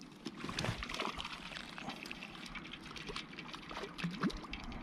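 A hooked gima (short-nosed tripodfish) splashing at the water surface in short, irregular splashes while it is played on the line toward the bank.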